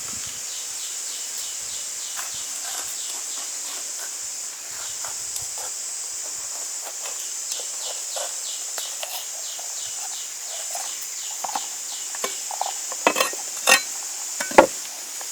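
Steady high buzz of insects, with a pulsing chirp about three times a second through the middle. Light scattered knocks and clicks of food being handled run underneath, and a few sharper knocks come near the end.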